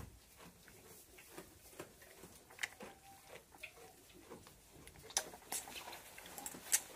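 Faint, irregular clicks and smacks of a newborn goat kid sucking warm milk from a small bottle. The clicks come thicker and sharper from about five seconds in.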